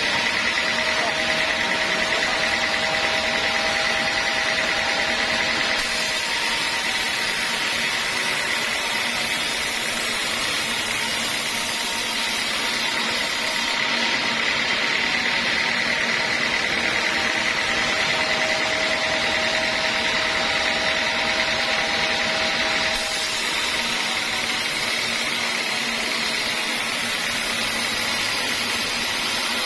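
Circular saw in a sawmill running steadily, with a constant high whine over a continuous machine noise; some of the upper and middle tones change several times, around six, fourteen and twenty-three seconds in.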